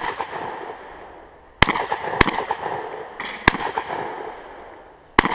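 Four rifle shots from an AR-15, unevenly spaced, with the first two about half a second apart and the next two after longer pauses. Each crack echoes across the range.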